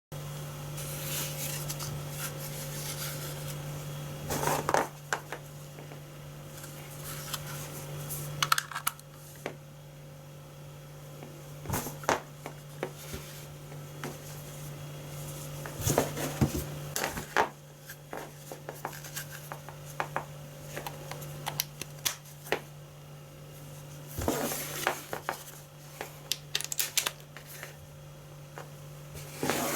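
Irregular light clicks, taps and brief clatter in a small room, over a steady low electrical hum.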